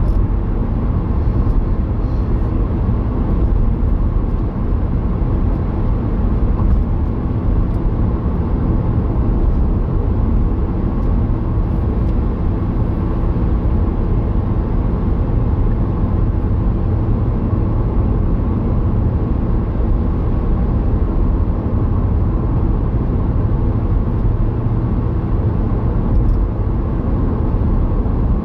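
Steady road and engine noise of a car cruising at about 54 mph, heard inside the cabin, mostly a low rumble with no changes.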